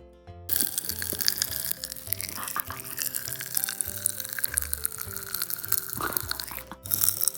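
Striking Popping candy crackling and fizzing as a dense stream of tiny pops, beginning about half a second in and breaking off briefly near the end, with background music underneath.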